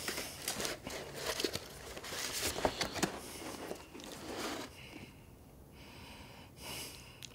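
Paper rustling and crinkling as a photograph is drawn out of a paper envelope and handled: irregular rustles for about four and a half seconds, then quieter, with one short rustle near the end.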